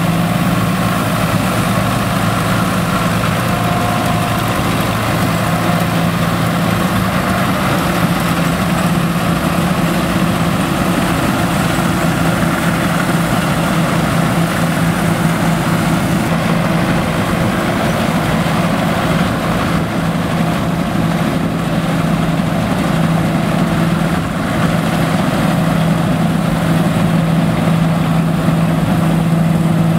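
Vintage Nuffield tractors pulling Dronningborg trailed combine harvesters, their engines and machinery running steadily with an even low hum.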